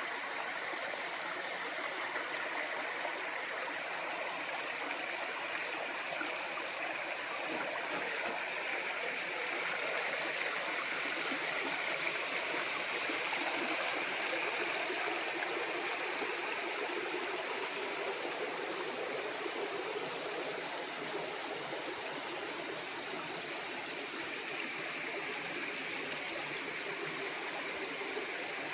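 Running water, rushing steadily.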